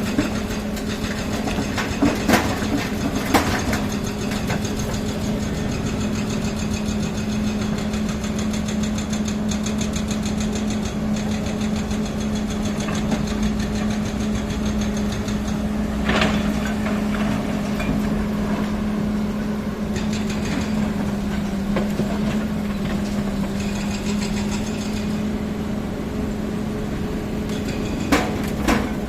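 An engine running steadily at an even pitch, with a few sharp knocks or clanks: two in the first few seconds, one around the middle and two near the end.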